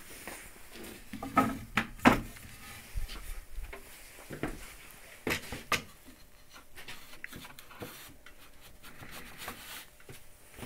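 Irregular knocks and clunks of things being handled and set down, loudest in a cluster about two seconds in and again a little after five seconds, then lighter taps.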